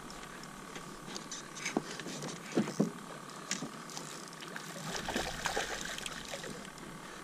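Water splashing and sloshing at a kayak's side as a hooked fish thrashes at the surface near a landing net, with scattered small knocks.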